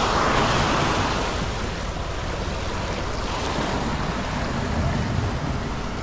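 Sea surf washing over the rocks: a steady rush of breaking waves, loudest in the first second or so.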